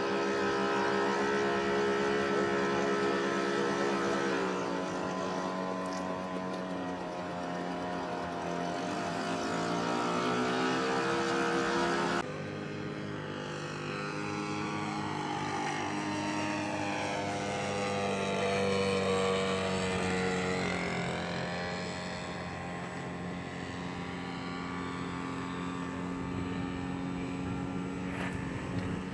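Radio-controlled model airplane engine running in flight, its pitch sliding down and back up as the plane passes and turns. About twelve seconds in, the sound changes abruptly to another stretch of the engine in flight.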